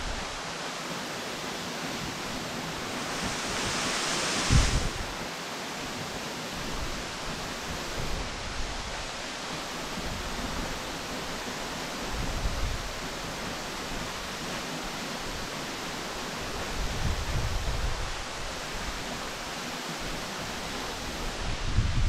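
Steady rushing of a waterfall plunging into its pool, with a few low rumbles of wind on the microphone now and then.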